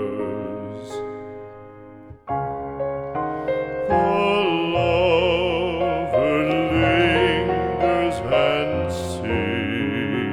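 Classical art song: piano accompaniment with a singer holding long notes with vibrato, a new phrase entering about two seconds in.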